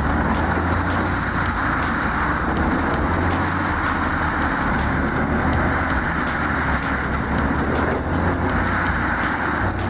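Heavy machine's engine running steadily under load, with a low hum and a continuous rushing, grinding noise.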